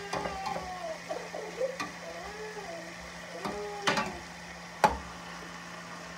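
Metal spoon stirring sautéed vegetables in a stainless steel pot, clinking sharply against the pan four times, over faint sizzling and a steady low hum.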